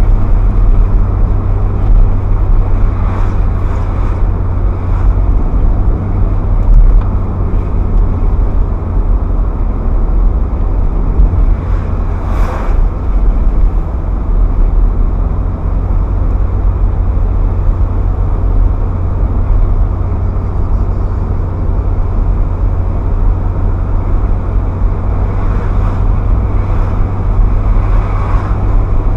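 Ferrari F430's mid-mounted V8 engine running at a steady, light load while cruising, with tyre and road noise, heard on board. It is a low, even drone with no clear revving.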